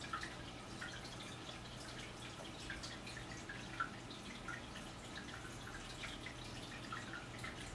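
Faint indoor room sound: a low steady hum with scattered small ticks at no even rhythm, two of them slightly louder, just after the start and about four seconds in.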